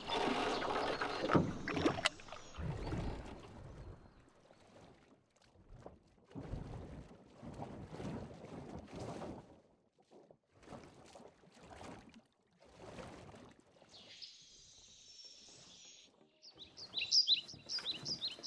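Water splashing as a largemouth bass is lowered into the lake and let go over the side of a rowboat, followed by soft sloshes of water about every second. Near the end come a few short high chirps.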